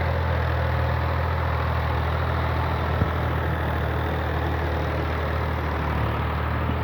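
An engine running steadily: a low, even drone under a constant rushing hiss, with one brief click about three seconds in.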